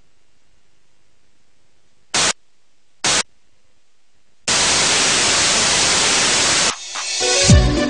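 White-noise static hiss: two short blips about a second apart, then a steady burst of about two seconds that cuts off.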